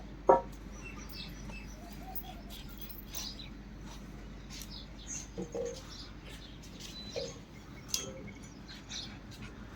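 Small birds chirping on and off in many short, high chirps over a steady low hum. A brief, loud, lower-pitched call about a third of a second in stands out, with a few fainter ones around the middle.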